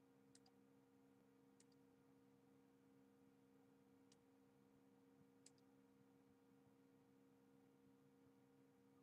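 Near silence: a faint steady electrical hum, with four faint short clicks in the first half.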